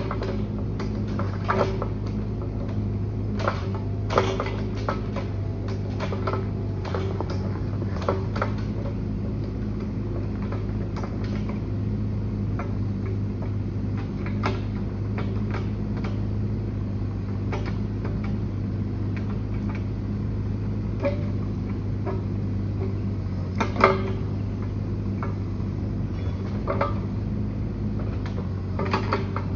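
Mini excavator's diesel engine running at a steady speed, with scattered sharp knocks from the machine at work; the loudest knock comes about 24 seconds in.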